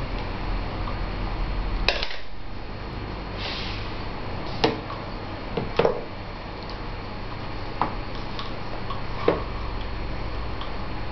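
A spoon and a plastic bowl clacking against a plastic high-chair tray as a baby feeds himself: about five sharp knocks at uneven intervals over a steady background hiss.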